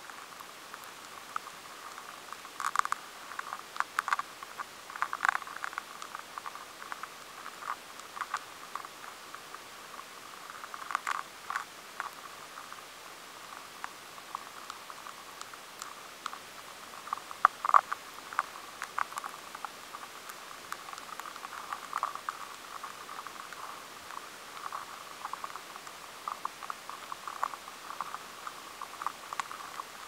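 Highly amplified feeding sounds of an Angoumois grain moth caterpillar inside a maize kernel: irregular dry clicks and scrapes over a faint hiss as it eats out the grain, with louder bunches of rapid ticks every few seconds.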